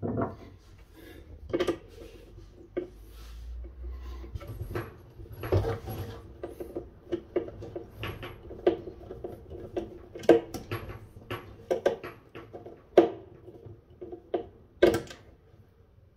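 Scattered clicks and knocks of a long metal screw and fittings against the overflow of an IKEA Kilsviken sink as the overflow cover is screwed in, with a few sharper knocks near the end.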